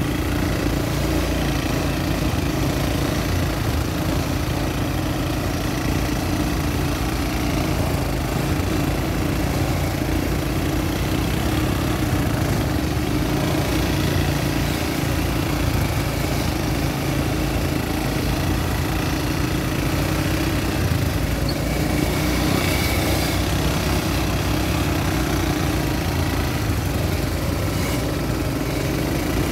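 ATV (quad bike) engines running steadily, with an even drone and no revving.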